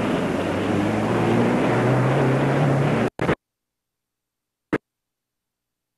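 A vehicle running with a steady hum that rises in pitch, then the sound cuts off abruptly about three seconds in, leaving dead silence broken by a brief burst and one click.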